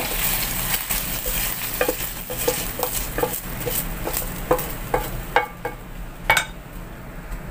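Metal spatula scraping and knocking against a wok as stir-fried beef is scraped out onto a plate, in short strokes about two a second. Under the strokes the hot wok keeps sizzling, fading out about five seconds in; the loudest knock comes near the end.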